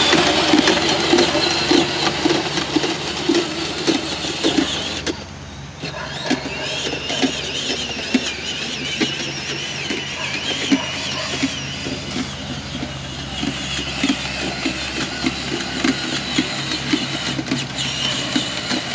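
Electric drive motors and plastic gearbox of a Power Wheels Jeep running as the ride-on toy drives across grass, a steady mechanical whine whose pitch wavers, with small clicks and rattles.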